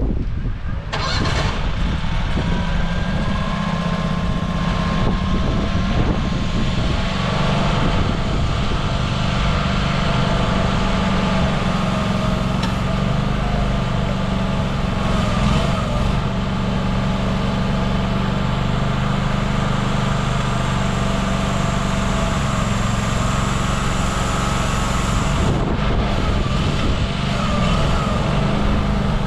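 Diesel engine of a CFG Industrial MX20R mini excavator running steadily, with a continuous hum and pitched tones that shift slightly over time.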